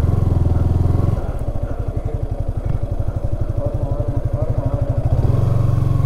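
Motorcycle engine running as it is ridden slowly over a rough road, with a regular low beat; it gets louder in the first second and again about five seconds in as the throttle opens.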